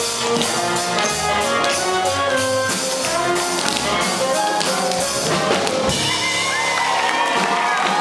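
Live big band playing swing jazz, with saxophones and trumpet over a drum kit, in a quick run of short notes. Near the end it settles onto a long held final note.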